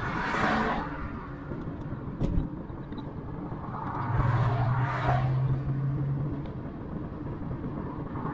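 Road vehicle noise: a steady rumble of engine and tyres, with a vehicle swelling past about half a second in and another from about four to six seconds in, and a short knock just after two seconds.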